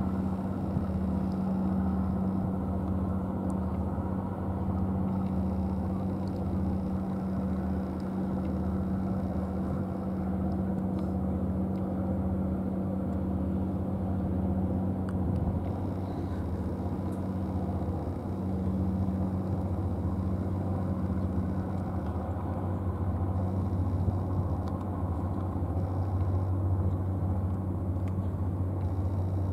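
A steady low engine rumble with a deep, even hum that does not change.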